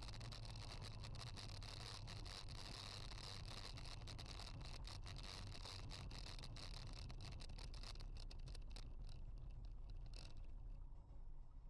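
Faint cabin noise of a car driving, as picked up by a dashcam microphone: a low engine and road hum with a steady high hiss and fine crackling, dying down near the end as the car slows.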